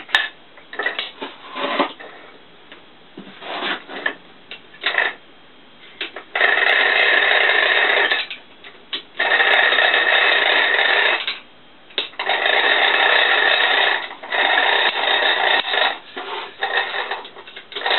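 Steel parts of a 250 mm three-jaw lathe chuck clinking, then a steady metal-on-metal rasping in stretches of about two seconds, five times, as the chuck is worked by hand to run its jaws in.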